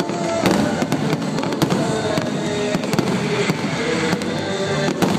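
Fireworks going off continuously: a dense run of sharp crackles and bangs, with no let-up.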